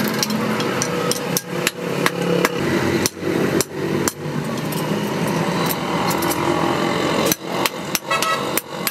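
Blacksmith's hand hammer striking a red-hot knife blade forged from truck leaf-spring steel on a steel block anvil: a run of sharp metallic blows, irregularly spaced at about two a second.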